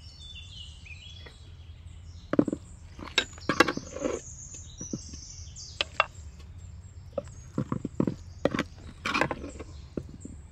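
A metal ladle scraping and knocking against a pan and a metal serving tray while fried meat is scooped out and pushed off with a knife: a run of sharp clinks and scrapes starting about two seconds in. Birds sing during the first second or so.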